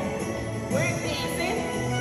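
Haitian dance music playing, with jingling percussion in the mix.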